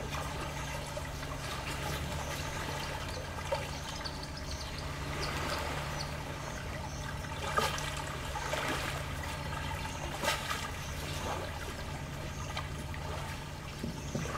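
Small waves of Lake Victoria lapping and trickling against the shore, with a couple of louder splashes about halfway through and again a few seconds later, over a steady low hum.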